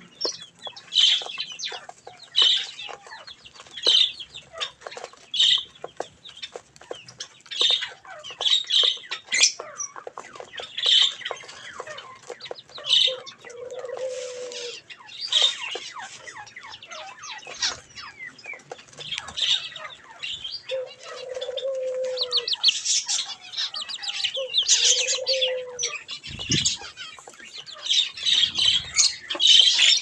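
Budgerigars and zebra finches chirping and chattering as they feed, over a constant patter of small clicks from beaks cracking seed husks. A low, drawn-out coo comes in four times.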